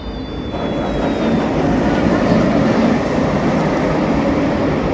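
Nemesis Inferno's B&M inverted roller coaster train passing close overhead on its steel track: a loud rolling roar that builds about half a second in and peaks around the middle. A short high tone is heard at the very start.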